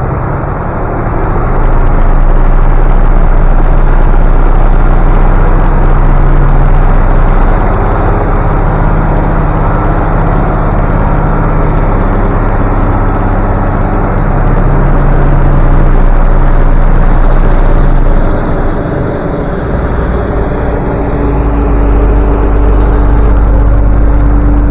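Combine harvester running under load while it harvests soybeans: a steady low engine drone with threshing noise, easing off briefly about 8 seconds in and again around 18 to 22 seconds in.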